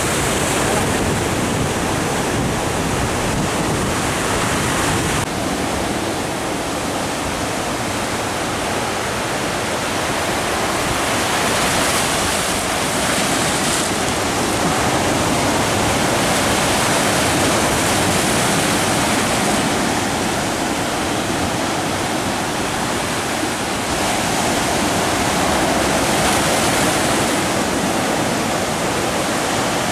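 Ocean surf breaking and washing over shoreline rocks: a steady, loud rush of waves.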